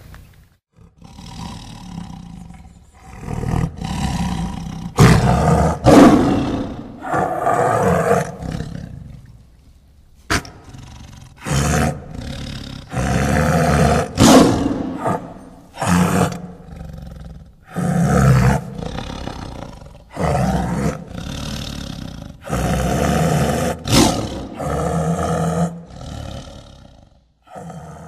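Rottweiler growling ferociously in a long series of loud bursts, each a second or two long, as it bites and worries at a cardboard cutout.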